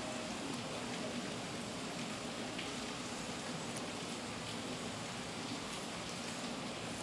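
Steady hiss of background noise with a faint low hum, and a few faint light clicks.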